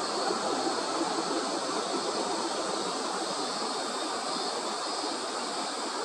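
Steady rushing outdoor background noise with no distinct calls, splashes or other events.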